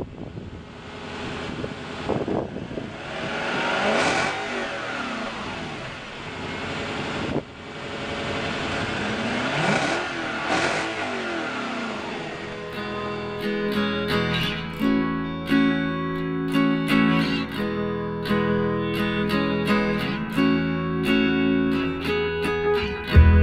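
A car engine revved several times, heard close at the exhaust tailpipe, its pitch rising and falling with each rev. About halfway through the engine sound stops and acoustic guitar music takes over.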